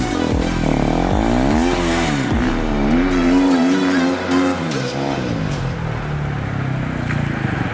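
KTM 450 EXC-F's single-cylinder four-stroke engine revving up and down several times in quick succession, then held at a steadier, wavering high rev. It eases to a lower, weaker run over the last few seconds.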